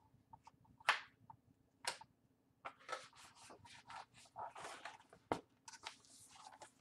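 Pages of a hardcover picture book being turned and handled: soft paper rustling with a few sharp taps, the clearest about one, two and five seconds in.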